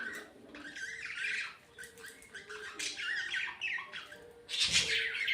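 Budgerigars chattering and squawking in quick, warbling bursts, louder near the end.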